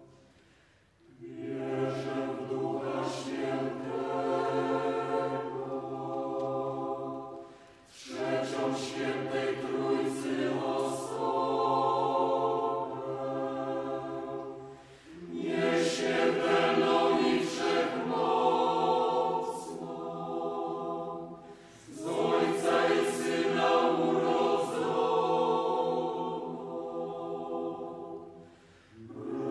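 Mixed choir of women's and men's voices singing, in four long phrases with a short breath pause between each.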